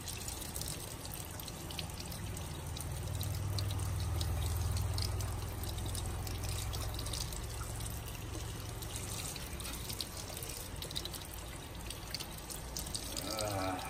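Water running steadily from a kitchen faucet, splashing over a puppy and into a stainless steel sink, with fine dripping and a low rumble that swells a few seconds in and then eases.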